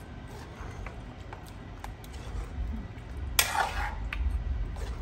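Metal spoon stirring a thick, simmering stew in a wide metal pan, with light clinks of metal on metal and one louder scraping clatter against the pan about three and a half seconds in.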